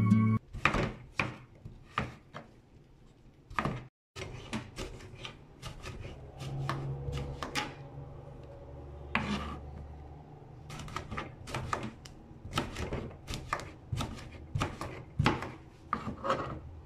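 Kitchen knife chopping vegetables, eggplant among them, on a plastic cutting board: irregular sharp knocks of the blade striking the board, some close together and some spaced out. A low hum runs underneath for a few seconds in the middle.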